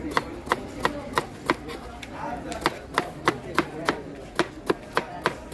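A knife chopping food for jhal muri in quick, even strokes, about three sharp chops a second, with a short pause around two seconds in.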